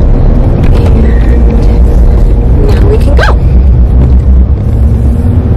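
Road and engine rumble inside a moving car's cabin, low and steady, with one brief pitched sound that rises and falls about three seconds in.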